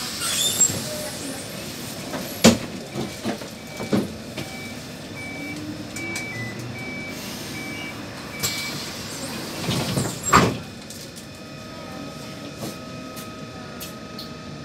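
BN Kusttram coastal tram at a stop: a row of about seven short, even beeps at one pitch, the door-closing warning, among clunks and knocks of the doors. The beeps are followed by a loud thump about ten seconds in as the doors shut, and then a faint steady whine.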